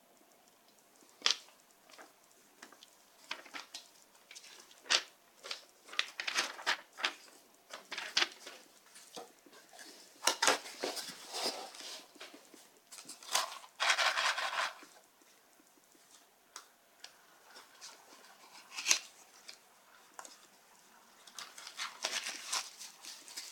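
Unboxing handling noises: paper and cardboard rustling and sliding, with scattered small knocks and clicks from the box and its foam insert, and a longer rustle about halfway through. Plastic packaging crinkles near the end.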